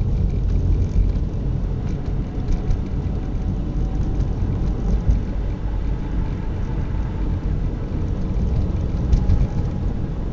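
Car driving on a snowy road, heard from inside the cabin: a steady low rumble of engine and tyre noise with a few faint ticks.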